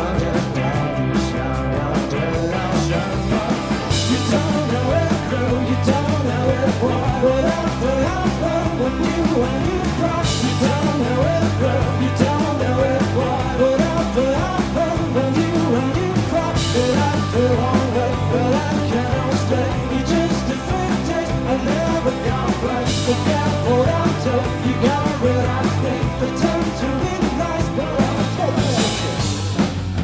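A rock band playing live: a singer over electric guitar, electric bass and a drum kit, with a cymbal wash about every six seconds.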